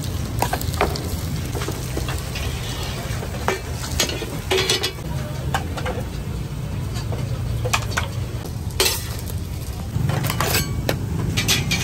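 Okonomiyaki batter sizzling in small frying pans over gas burners, with scattered sharp clicks and scrapes of a metal utensil against the pans. A steady low rumble runs underneath and gets louder about ten seconds in.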